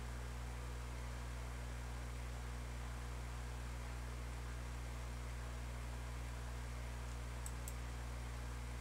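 Steady low electrical hum with an even hiss behind it, and two faint clicks near the end.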